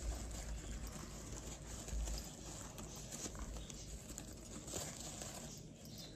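Rustling of a disposable dog diaper being handled around a small dog, with light, irregular taps of the dog's claws on a tile floor and a soft bump about two seconds in.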